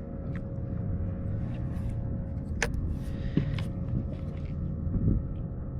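Scattered small clicks and knocks of fishing gear being handled on a kayak, over a steady low rumble and a faint steady hum.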